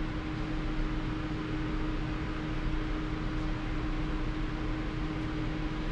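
Steady fan-like hum and hiss with a constant low tone, unchanging throughout.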